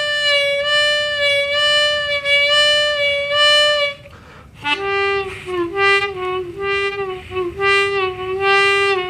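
Seydel Session Steel diatonic harmonica played tongue-blocked. One note is held for about four seconds. After a short break comes a lower note that is bent down and released again and again, its pitch dipping several times. The bends are made by closing the jaw as if biting.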